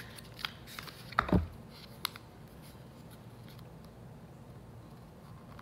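A few light clicks and taps from handling a small pressed-highlighter compact and its packaging, with one louder thump about a second in. After that only a faint steady room hum.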